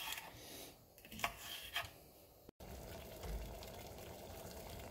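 A few light knife taps on a wooden cutting board while a green bell pepper is sliced. About halfway through, this gives way to a pot of water at a rolling boil, a steady bubbling hiss.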